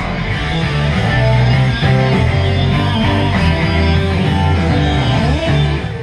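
Rock music with guitars and a steady beat played loudly through newly installed in-ceiling speakers, heard in the room; the volume starts to drop near the end.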